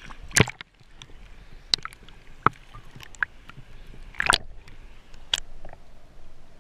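A splash as the camera goes under the river water about half a second in. Then muffled underwater sound: scattered sharp clicks and knocks, roughly one a second, over a low gurgle.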